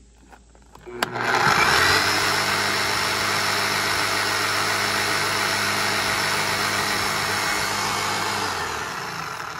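Bosch 11264EVS SDS-max combination hammer switched on with a click about a second in, its motor running up and holding steady with no bit fitted, then winding down near the end. It is powered from a 12 V Victron Phoenix inverter, which starts it and keeps it running.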